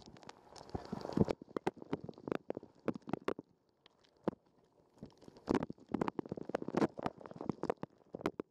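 Dishwasher wash cycle heard from inside the machine: water spray spattering and knocking irregularly against the camera housing and dishes, with gurgling, easing off briefly near the middle.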